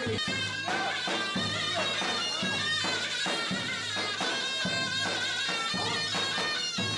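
Traditional Turkish folk dance music: a reedy wind instrument playing a melody over a steady drum beat.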